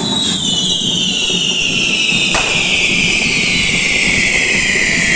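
Whistling firework: one long, high whistle that slowly falls in pitch, with a single sharp crack about two seconds in, over a low background rumble.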